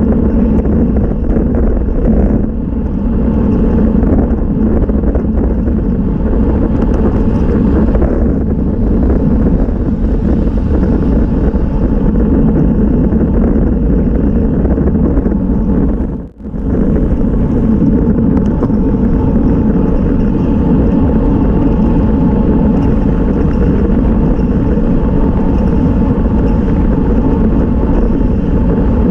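Wind rushing over a bicycle-mounted camera's microphone at about 30 mph, mixed with tyre noise on asphalt: a loud, steady noise. It breaks off for a moment about sixteen seconds in.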